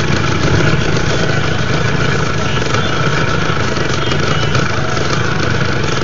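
A motor idling steadily, an unbroken low hum.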